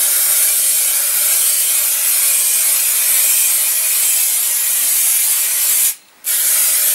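Aerosol spray can of etch primer hissing steadily as the paint is sprayed, with one short break about six seconds in.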